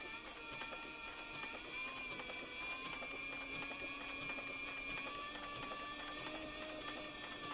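Cowboy CB4500 heavy-duty industrial sewing machine stitching through leather: a steady motor whine that drifts slightly in pitch, with a rapid run of needle-stroke clicks.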